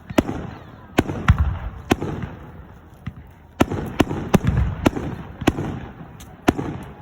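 Aerial fireworks bursting: a string of about ten sharp bangs at uneven intervals, each trailed by a low rumble.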